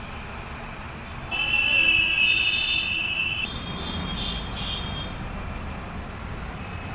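A vehicle horn blares for about two seconds, starting a little over a second in, then gives a few shorter, broken toots, over a steady rumble of street traffic.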